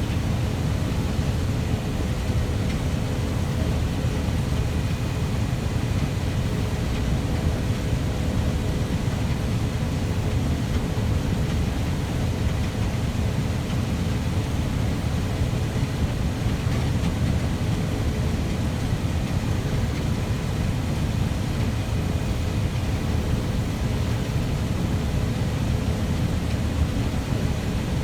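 Heavy farm machinery running steadily: a constant low engine rumble with a steady hum on top, unchanging in pitch or load.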